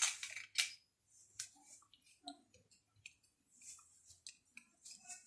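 Plastic parts of a phone holder clicking and scraping as it is fitted and adjusted: a quick run of sharp clicks at the start, then scattered light ticks.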